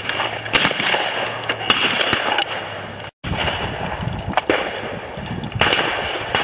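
Shotgun shots at a sporting clays competition: several sharp reports spread unevenly through, over steady background noise.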